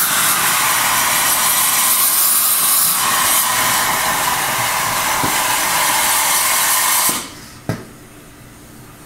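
Liquid nitrogen jetting from a nozzle into a steel bowl of cream mix to flash-freeze it into ice cream: a loud, steady hiss that cuts off abruptly about seven seconds in, followed by a single knock.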